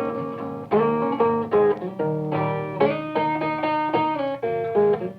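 Background music: a guitar picking an instrumental passage between the sung lines of a song, with plucked notes struck about every half second.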